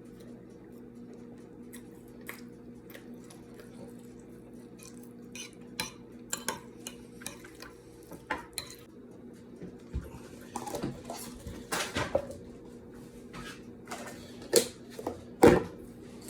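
Cutlery clinking and scraping against dishes during a meal. The knocks are sparse at first, then come more often and louder in the second half, over a steady low hum.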